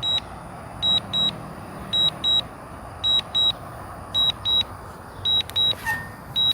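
DJI Mini 2 SE remote controller beeping in quick pairs, about one pair a second, the alert that sounds while the drone is returning home. A steady background noise of wind and surroundings runs underneath.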